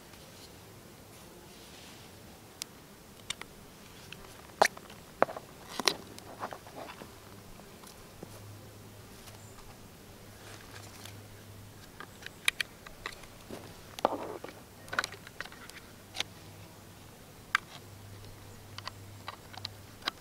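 Irregular sharp clicks and light knocks from hands handling a plastic solar power bank and a folding solar panel.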